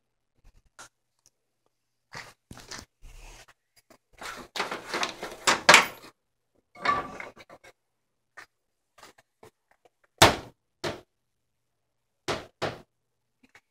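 A cat eating dry kibble from a bowl on a tile floor: irregular crunches and clicks, busiest around the middle, with a sharp knock a little after ten seconds.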